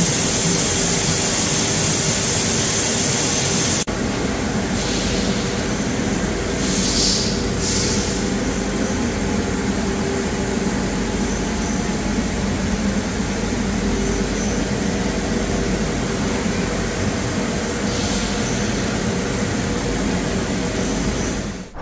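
Steady hum and whir of a powered-up Chiron FZ12 W vertical machining centre standing idle under power, with faint steady tones in it; the sound changes abruptly about four seconds in.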